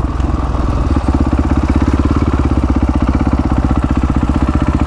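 Supermoto motorcycle's single-cylinder engine running steadily at low, even revs as the bike rolls along, its firing pulses regular and unchanging.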